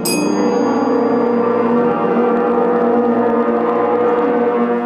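Beginning school wind band playing one loud, long held note together, all instruments coming in at once at the start and sustaining it steadily.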